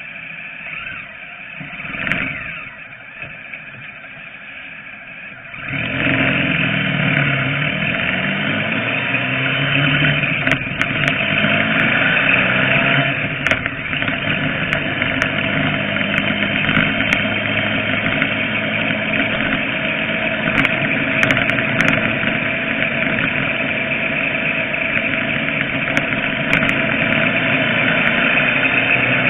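A motor vehicle's engine, quiet for the first few seconds, then pulling away about six seconds in. Its pitch rises as it speeds up, and it then runs steadily under load along with road noise.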